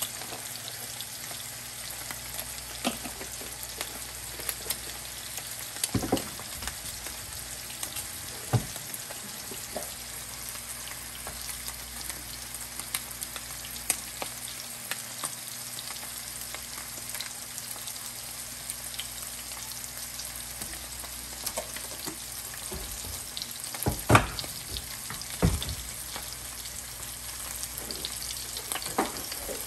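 Two bone-in rib steaks sizzling steadily in hot fat in a nonstick frying pan, with a scatter of sharper clicks and pops; the loudest few come about three quarters of the way through.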